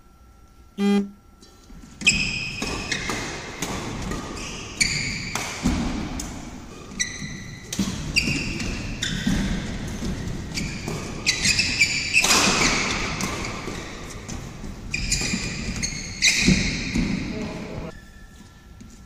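Badminton play on an indoor court: rackets hitting the shuttlecock again and again, with sharp squeaks from shoes on the court floor.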